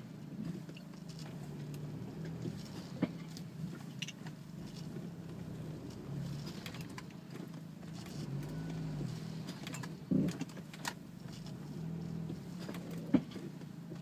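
Audi A4 B6 heard from inside the cabin rolling slowly, with a low hum that keeps rising and falling. The hum is the sign of a bad wheel bearing. A few sharp clicks sound about three, ten and thirteen seconds in.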